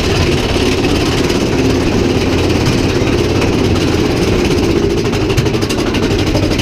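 Steady rumble of a theme-park ride train running along its track.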